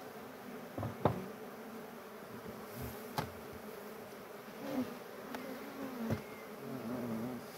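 Honeybees buzzing steadily around an open hive, the hum wavering as individual bees fly close. A few sharp clicks break in, about a second, three seconds and five and a half seconds in.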